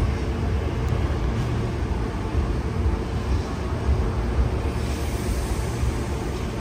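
Steady low rumble of a Hankyu electric train in the station, with no distinct events.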